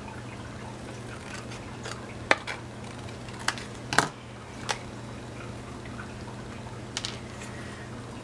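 Paper and craft supplies handled on a cutting mat: a few scattered short clicks and rustles, the sharpest about two and four seconds in, over a low steady hum.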